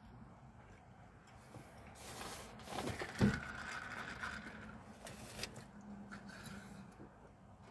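A plastic fast-food drink cup with a straw is picked up and handled: a few seconds of rustling and scraping with one sharp knock, then sipping through the straw near the end.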